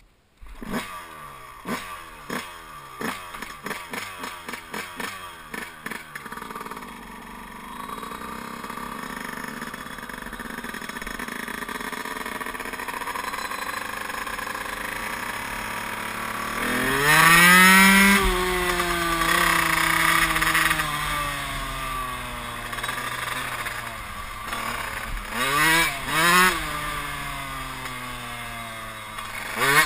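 Yamaha YZ125's two-stroke single-cylinder engine: a string of quick throttle blips in the first few seconds, then a steady climb in pitch as the bike pulls away. About seventeen seconds in it revs hard and then winds down slowly, with two short revs near the end.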